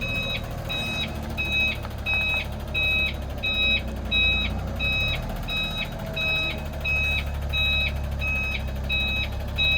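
Truck reversing alarm beeping steadily, about one and a half beeps a second, over the low running of the idling delivery truck's engine with its loader crane.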